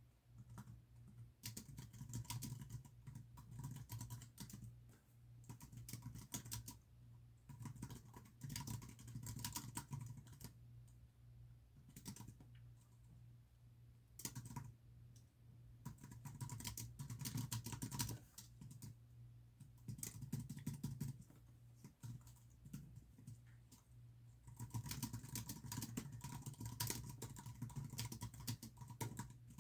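Typing on a computer keyboard in quick bursts of keystrokes broken by short pauses, over a steady low hum.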